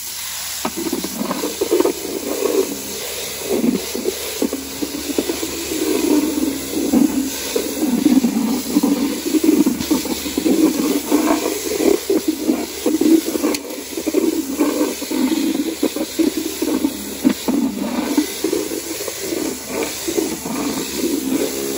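Kärcher K3 pressure washer spraying through its rotary patio-cleaner attachment onto paving slabs: a loud, steady rush of high-pressure water that starts suddenly and fluctuates as the cleaner moves over the slabs.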